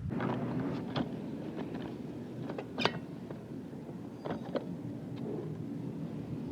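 A few sharp metal clicks and knocks from tools and parts being handled, the clearest about a second in and just before three seconds in, over a low steady hum.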